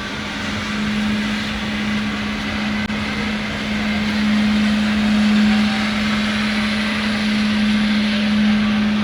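Airbus A380 jet engines running on the ground: a steady hum under a broad whooshing hiss, swelling slightly mid-way.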